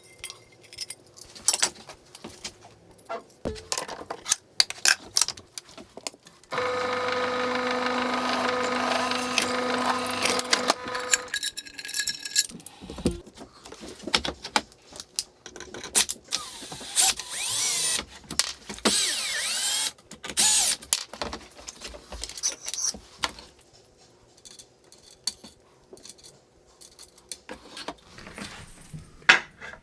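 Power drill at work: a steady motor whine for about five seconds, then a few seconds of high-pitched drilling noise as a small hole is drilled, with clinks and clicks of tools and metal parts being handled before and after.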